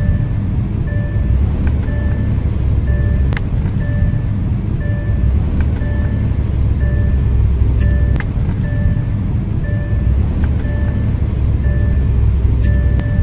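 Car being driven, heard from inside the cabin: a heavy low rumble that swells and eases, with a short beep repeating about twice a second.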